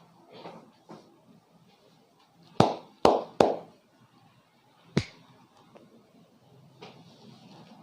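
Sharp hand smacks from a barber's percussive head massage: three loud ones close together about two and a half to three and a half seconds in, then one more about five seconds in, between softer taps.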